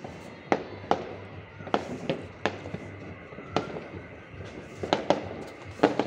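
Fireworks going off at a distance: about ten sharp bangs and pops at uneven intervals, some close together in pairs.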